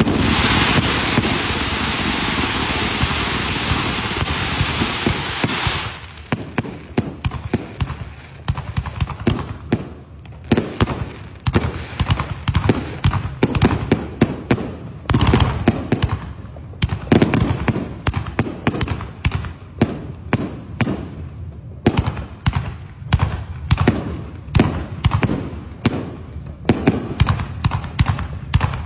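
Fireworks: one firework hisses loudly and steadily for about the first six seconds and then cuts off, followed by a long run of rapid, irregular firecracker cracks and pops.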